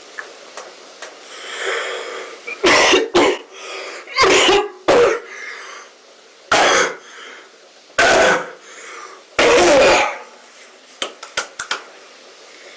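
A man coughing in a fit: about seven loud coughs over some seven seconds, some coming in quick pairs. A few faint clicks follow near the end.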